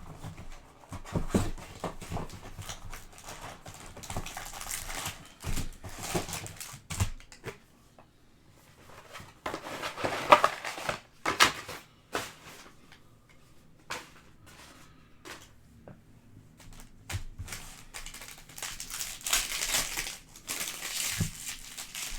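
Foil wrappers of Panini Prizm trading card packs crinkling and tearing open, with cards and packaging rustling and handled, in irregular bursts that are loudest about ten seconds in and again near the end.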